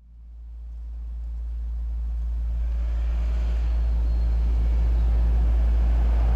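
Low, steady vehicle engine rumble fading in from silence and growing louder.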